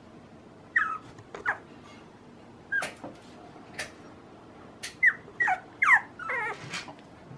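Young puppy whimpering: a series of short, high whines that fall in pitch, coming closer together in the second half. A few sharp clicks fall between them.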